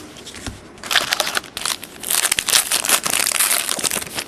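Crinkling and rustling of trading cards and their packaging being handled, in dense bursts from about a second in until just before the end.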